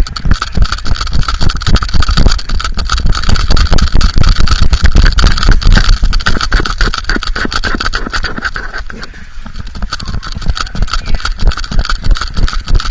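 Loud, rapid rubbing and knocking of a body-mounted action camera jostled against a small dog as it moves, with a heavy low rumble. It eases off around nine seconds in, then picks up again near the end.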